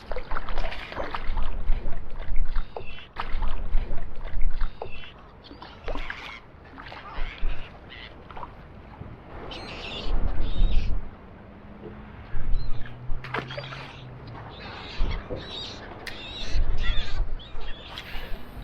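Seabirds calling now and then over the water, with gusts of wind buffeting the microphone and scattered clicks and knocks.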